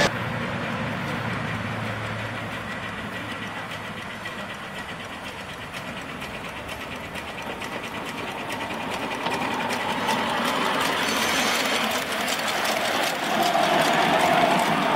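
Little Engines 2-6-0 live-steam ride-on locomotive running on the track, with a rapid, even ticking rhythm. It fades a little, then grows louder toward the end as it comes closer.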